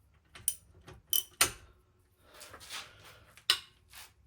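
Steel hand tools clinking and clanking: a handful of sharp metallic clinks, with a short scraping rattle in the middle.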